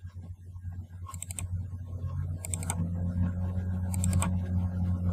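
Computer mouse clicking as folders are opened: four short clusters of sharp clicks, about one every second and a half, over a steady low hum.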